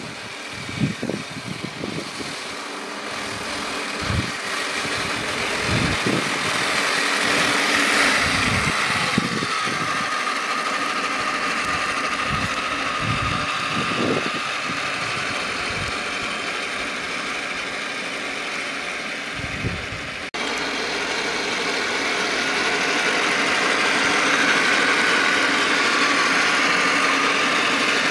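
3D-printed radio-controlled model T-34 tank driving through grass: a steady whine from its drive motors and gearing, growing louder over the first several seconds as it comes closer. Low thumps of wind on the microphone break in during the first half.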